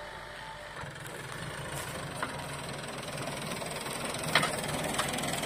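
Massey Ferguson 4275 tractor's diesel engine running steadily while pulling a three-disc reversible disc plough, growing louder as it comes closer. A few short sharp knocks are heard over the engine.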